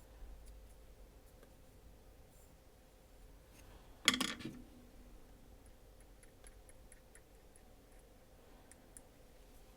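Quiet handling of small folding-knife parts during reassembly, with one sharp click-and-clatter about four seconds in and a few faint light ticks a couple of seconds later.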